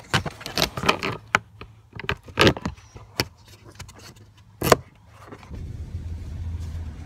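A plastic trim cover under a car's dashboard is handled and clipped into place: a run of clicks and knocks, ending in one sharp snap after about four and a half seconds. A steady low hum of a moving car, heard from inside the cabin, follows.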